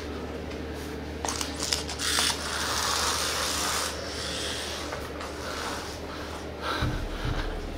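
Rustling, rubbing noise, strongest for about two seconds near the middle, with a few light clicks before it.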